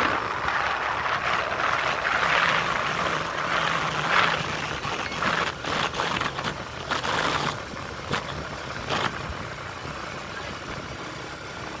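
Engine and road noise from a vehicle driving along, heard from inside it. A low engine hum fades about seven seconds in, and several sharp clicks or rattles come in the middle.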